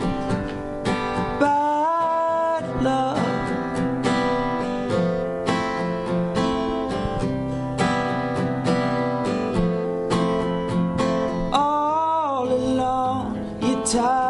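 Acoustic guitar strummed steadily, with a short sung phrase about two seconds in and another near the end.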